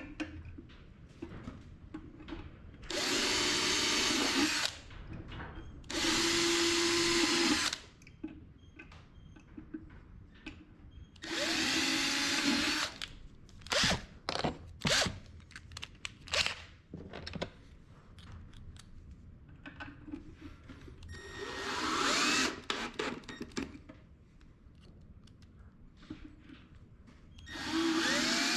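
Power drill driving long screws into a half-inch wood panel, in about five runs of one to two seconds each with its pitch sweeping as the trigger is squeezed and let go, plus a quick series of short blips partway through as a screw is snugged down.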